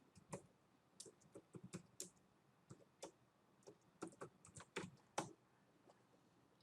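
Computer keyboard being typed on: soft, irregular keystrokes in two short flurries, as a command is entered.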